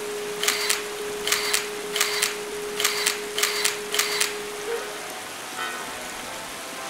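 A camera shutter firing about seven times at uneven intervals, each shot a quick double click, over an even rain-like hiss. A steady tone runs beneath the clicks and stops about five seconds in.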